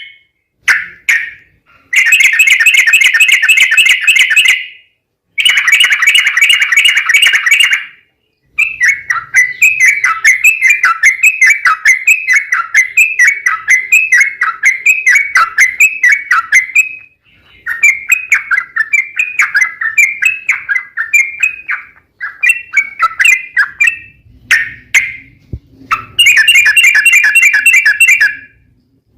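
Yellow-vented bulbul (trucuk) singing loudly in long rapid chattering runs, with stretches of evenly repeated notes at about two a second in the middle. The song breaks off abruptly into several short silences, like an edited loop.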